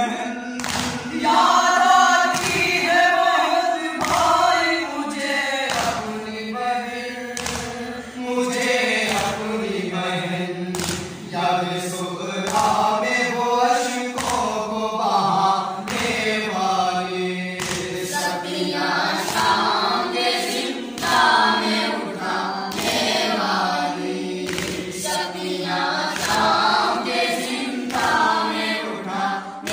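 Several men chanting an Urdu noha lament together, with sharp chest-beating slaps (matam) keeping a beat roughly once a second.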